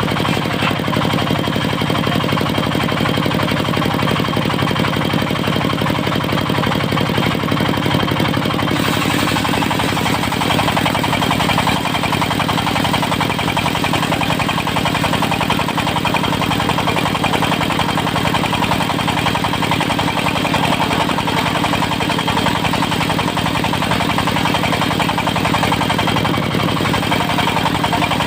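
Diesel engine of a portable circular-saw sawmill running steadily with a knocking clatter; the sound shifts slightly about nine seconds in.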